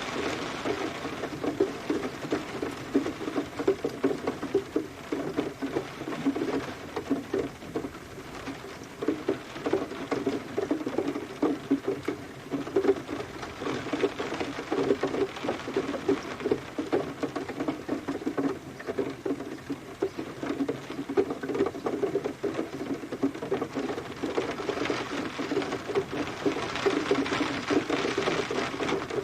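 Rain pattering: a dense, irregular stream of drops striking a surface, over a steady hiss.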